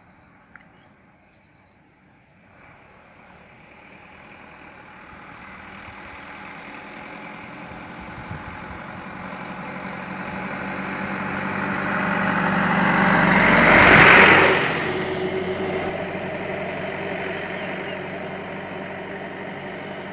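Isuzu box truck's engine approaching and driving past close by: it grows steadily louder, is loudest about 14 seconds in, then fades as the truck moves away.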